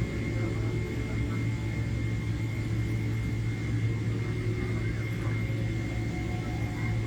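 Steady cabin noise of a jet airliner in flight: a low drone of engines and airflow with a thin, steady whine above it.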